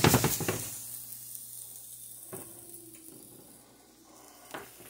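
Elk burger patties sizzling in a nonstick frying pan. A utensil clatters and scrapes against the pan at the start as a cooked patty is lifted out, then fades, with a couple of light knocks later.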